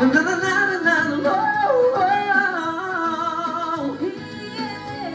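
Forró band playing live, with a singer carrying a drawn-out melody that slides and bends between notes over the band.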